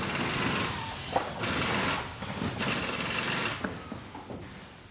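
Factory machinery running in repeated bursts of about a second each, with a sharp click about a second in; it quietens near the end.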